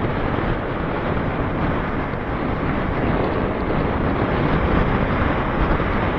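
Steady wind rushing over the microphone of a camera on a motorcycle riding at road speed, a loud even noise with no pitched tone in it.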